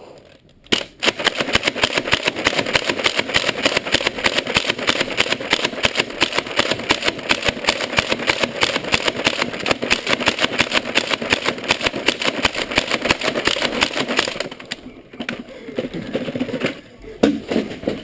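Motorized Nerf blaster firing one long full-auto burst: a fast, even mechanical rattle that starts about a second in and stops shortly before the end, followed by a few scattered knocks.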